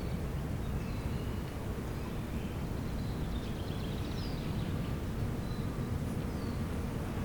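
Outdoor spring ambience: faint, scattered birdsong of short high chirps and glides over a steady low rumble.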